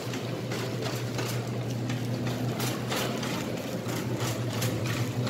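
Wire shopping cart rolling across a smooth store floor, its wheels and basket rattling in quick, uneven clicks, over a steady low hum.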